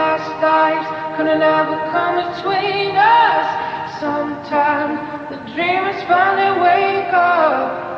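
Background music: a song with a sung vocal line and no clear words, carried over from the lyrics just before.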